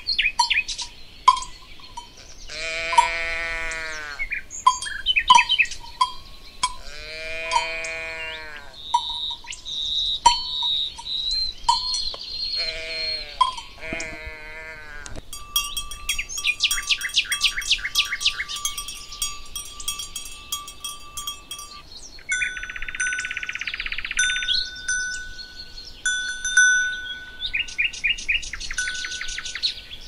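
Farm animals calling with drawn-out bleat-like calls, four of them in the first half, over the clank of bells. In the second half, bells ring steadily and birds sing.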